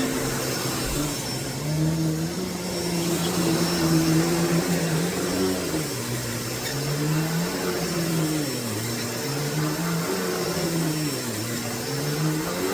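Hoover Deluxe Elite Rewind upright vacuum cleaner running steadily, a motor hum over rushing air. In the second half the motor's pitch dips and recovers every second or two.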